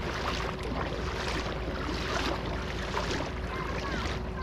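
Feet wading and splashing through shallow river water, irregular small splashes, with wind rumbling on the microphone.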